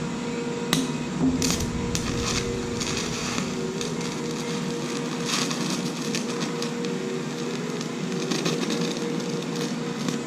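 Scratch-start TIG welding arc from a small portable welder, crackling and sizzling irregularly, with a sharper crack just under a second in. A steady hum runs underneath.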